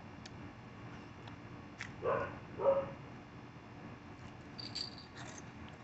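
A dog barking twice, about half a second apart, about two seconds in.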